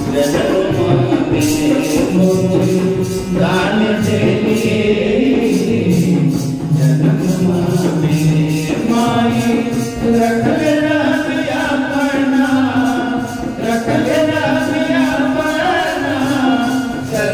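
Bhojpuri devotional song to the Mother Goddess (Devi bhajan): sung melody over a steady, evenly spaced percussion beat.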